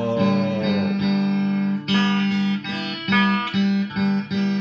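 Electric guitar strumming chords, with fresh strums repeating in a steady rhythm.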